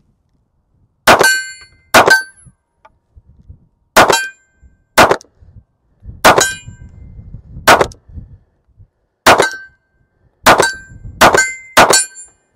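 Smith & Wesson Bodyguard 2.0 .380 pistol fired ten times at an uneven pace, about a second apart, each shot followed by the ring of the steel target plate being hit.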